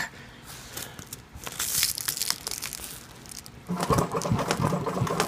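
Rustling and crinkling of the nylon harness fabric being shifted at the machine, then about three and a half seconds in a Techsew heavy-duty sewing machine starts and runs steadily, a constant hum with a regular rapid beat of needle strokes through the webbing.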